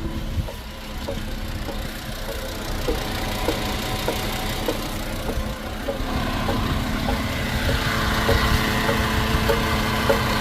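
Repeated light clicking over the steady running of a 2012 VW Golf 2.5, about two clicks a second, coming a little quicker in the second half as the engine and road noise rise. The owner ties the clicking to the 09G automatic transmission.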